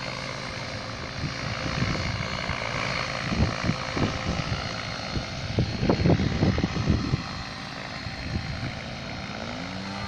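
Mikado Logo radio-controlled helicopter in flight, its rotor and motor whirring steadily, with heavier low buffeting for a few seconds in the middle.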